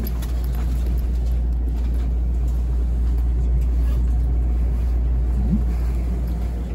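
Steady low hum and rumble inside a Tobu Spacia X express train car standing at the platform, from the car's onboard equipment.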